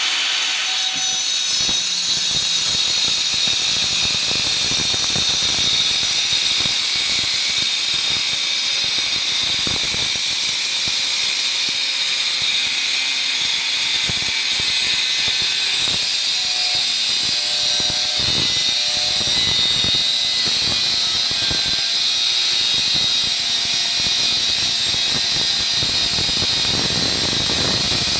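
Angle grinder cutting into a 1¼-inch steel gas pipe clamped in a vise: a steady, loud, high-pitched whine as the wheel bites through the metal, without a break.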